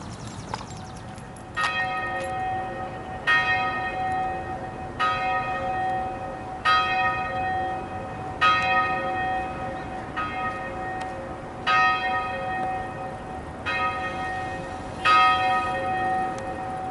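A church bell tolling slowly, the same bell struck about every one and three-quarter seconds, each stroke ringing on into the next. The first stroke comes about one and a half seconds in.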